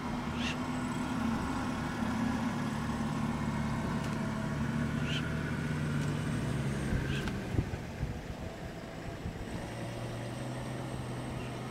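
A motor vehicle's engine idling steadily with a low hum, its note shifting lower about two-thirds of the way through. A few short high chirps sound over it.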